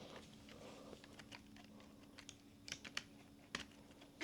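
Near silence with a few faint, light clicks and taps from small things being handled, over a faint steady hum.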